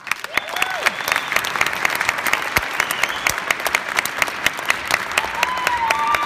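Audience applauding, starting suddenly and going on as dense clapping, with a few voices calling out over it.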